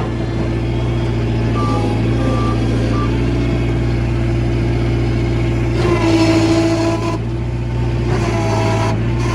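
Bobcat 743 skid steer's diesel engine running steadily. About six seconds in and again near the end, a higher whine and hiss swell briefly as the hydraulics are worked.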